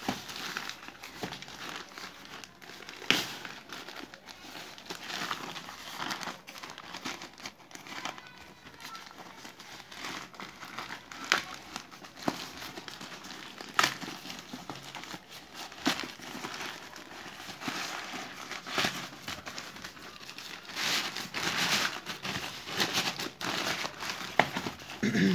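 Plastic courier mailer bag being handled and pulled open by hand: irregular crinkling and crackling, with sharp snaps of the plastic now and then.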